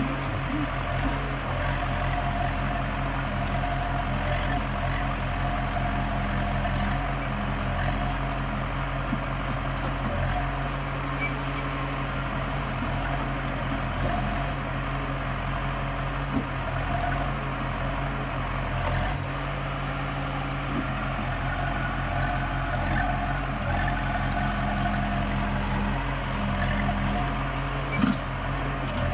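Diesel engines of a backhoe loader and tractor running steadily at low, even speed, with a sharp knock near the end.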